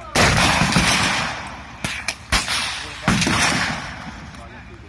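AR-15 rifle shots: two loud shots about three seconds apart, each ringing on with a long echo, and two shorter sharp cracks between them.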